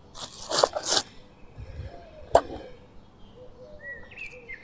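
A packet crinkling as it is handled in the first second, then a single sharp click of a small bowl set down on the ground about halfway through. Birds chirp near the end.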